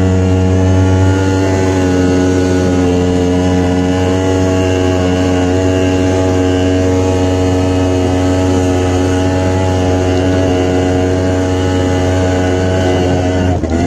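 Old two-stroke moped engine running at a steady, held throttle while riding, with a brief dip in revs and level near the end before it picks up again.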